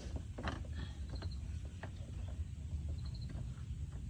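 Scattered light clicks and taps of plastic being handled as the license plate lamp housing is worked open, over a steady low rumble.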